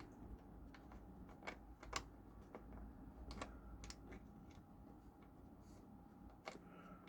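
Faint, scattered small clicks and taps of a butterfly nut and washer being fiddled onto a bolt under a plywood jig plate, the nut not yet catching the thread.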